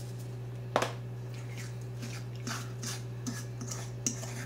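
A single knock about a second in, then a metal spoon stirring and scraping thick breadcrumb-and-clam stuffing in a stainless steel bowl, in soft irregular scrapes and clinks. A steady low hum runs underneath.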